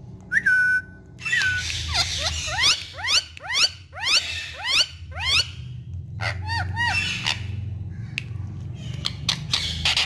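Indian ringneck parakeet whistling and calling. A held whistle comes first, then a quick run of rising whistled notes, then a few short arched notes.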